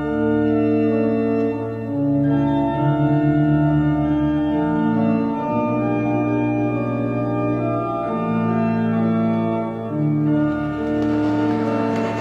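Organ playing slow, sustained chords that change every couple of seconds.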